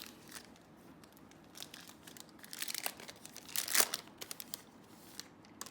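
Wrapper of an Illusions football card pack crinkling and tearing as it is opened. Quiet scattered crackles, with a louder rustle a little past the middle.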